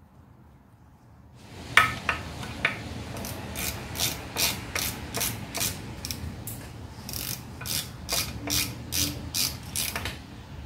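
Socket ratchet clicking in a quick run of strokes, about three clicks a second, as the drain plug of the transmission and front differential is turned back in and tightened. The clicking starts about a second and a half in.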